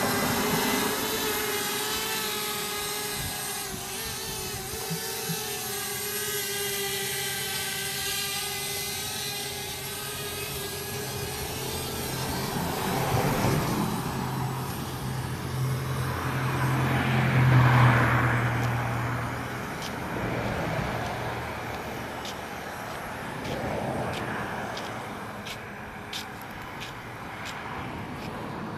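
A buzzing whine with several pitches stacked together, wavering slightly, fades out about ten seconds in. Then road vehicles pass, each swelling up and dying away, the loudest about eighteen seconds in.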